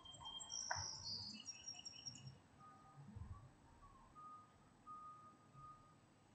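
Faint street ambience: birds chirping in quick high notes during the first couple of seconds, then a few short, level whistled notes, over a low distant traffic rumble.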